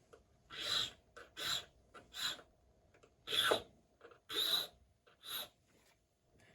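A hand file rasping across a key blank in about six short strokes, roughly one a second, with a few lighter strokes between: filing down the impression marks while cutting a key by impressioning.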